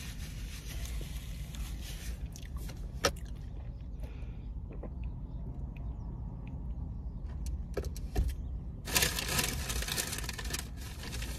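Quiet inside a parked car: a low steady hum with a few small clicks and mouth sounds from eating and sipping a drink through a straw, then a short, louder stretch of rustling noise about nine seconds in.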